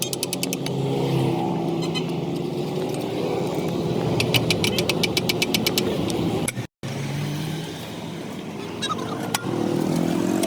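A vehicle engine running steadily, with bursts of rapid high clicking at the start and again about four seconds in. The sound drops out briefly about two-thirds through.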